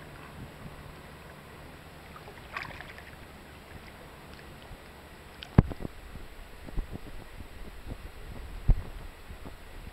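Wind rumbling on the microphone and water lapping against a small boat, with a brief hiss a couple of seconds in and two sharp low thumps, one about halfway and one near the end.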